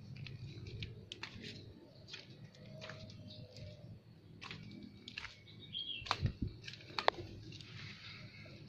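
Irregular clicks and knocks, with a few louder thuds and a sharp click about six to seven seconds in, and birds chirping faintly in the background.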